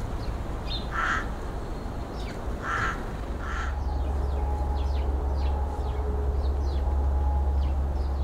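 A crow-family bird gives three short caws, one about a second in and two more close together around three seconds in, over small birds chirping. A low steady rumble sets in about three seconds in.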